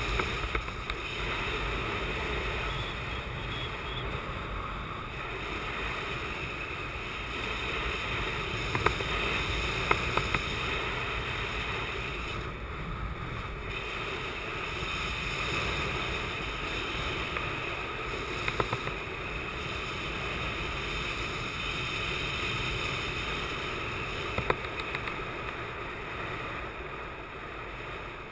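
Rushing wind over the microphone of a camera on a speed-wing pilot in fast gliding flight, with a few sharp clicks now and then. The rush eases a little near the end, as the wing nears the ground.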